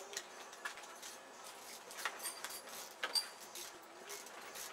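Scattered light clicks and metallic clinks from tools and engine hardware being handled, with a couple of brief ringing clinks about two and three seconds in.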